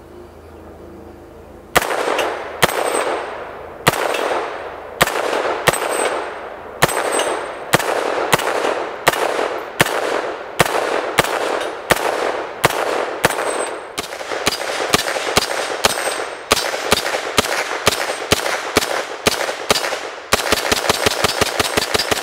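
POF-5 9mm pistol, a semi-automatic MP5 clone, firing a long string of shots, each trailing off in an echo. The shots start about one a second, quicken as the string goes on, and finish in a rapid run of shots near the end.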